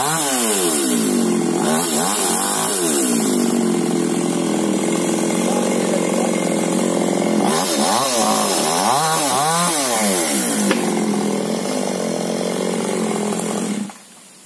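Chainsaw running hard, its engine pitch swinging up and down several times near the start and again around the middle, holding steady at high revs in between, then cutting off abruptly near the end.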